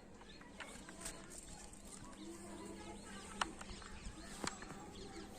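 Faint birds chirping in the background, with two sharp clicks about a second apart past the middle.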